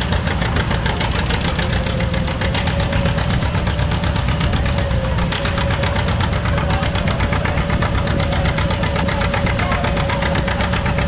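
John Deere Model A two-cylinder engine running with a fast, even popping exhaust beat, with a steady whine alongside.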